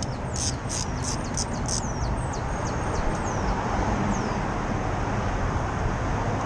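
Birds chirping in quick, high calls for the first two seconds or so, then a few thinner falling calls, over a steady hum of street traffic noise.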